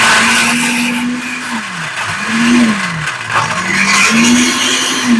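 Countertop blender running on hard chunks of raw carrot and root with no liquid added. The motor's pitch holds, sags about a second and a half in, surges briefly, sags again and climbs back, running in three surges as it grinds the dry load, and starts to wind down at the very end.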